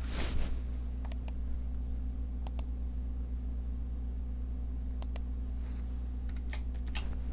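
Scattered clicks of a computer mouse and keyboard, several in quick pairs like double-clicks, with a brief swish just after the start, over a steady low hum.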